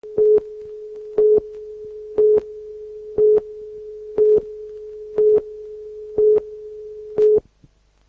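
Video countdown leader tone: a steady mid-pitched tone with a louder beep of the same pitch once a second, eight beeps in all, each clicking on and off. The tone cuts off suddenly near the end.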